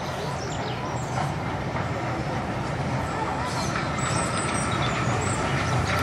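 Steam locomotive hauling coaches approaching along the line, its rumble growing steadily louder as it nears.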